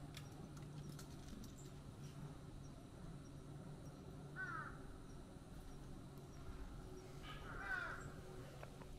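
Cat meowing twice: a short call about four and a half seconds in, and a longer, louder one near the end.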